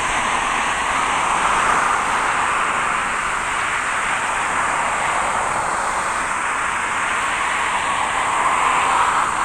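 Jet airliner's engines passing close by, a loud, steady rushing noise that swells near the end.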